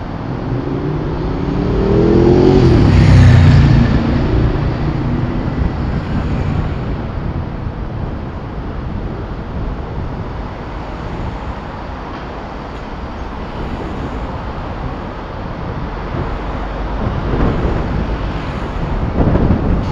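Road and wind noise on a camera mounted on the outside of a moving vehicle. An engine accelerates about two to four seconds in, rising in pitch, and this is the loudest part. Near the end, wind rumble on the microphone grows rougher and louder.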